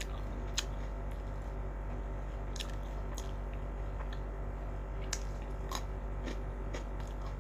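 A person biting and chewing a fresh cucumber slice, with a handful of short crisp crunches scattered through, over a steady low hum.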